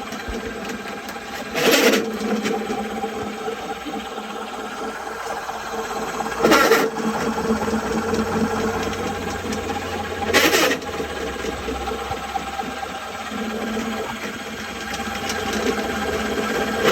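Spartan 300 drum drain-cleaning machine running steadily, its motor turning the cable deep into a clogged sewer line, with three short louder bursts of noise about 2, 6.5 and 10.5 seconds in.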